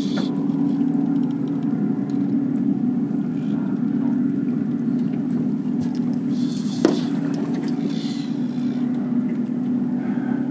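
Boat motor running steadily under the skiff, a constant low hum, with a single sharp knock about seven seconds in.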